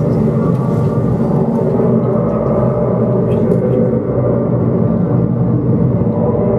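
Loud, dense electronic drone of many sustained tones over a low rumble, played live from an electronic device on the floor, holding steady.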